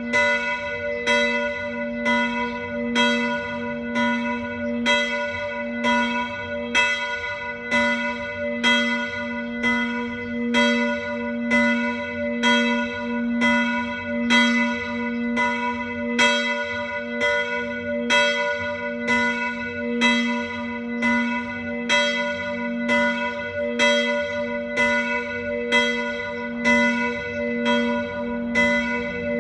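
Church bells swinging in a full peal: several bells striking in a steady, unbroken pattern, about one and a half strokes a second, each stroke ringing on into the next.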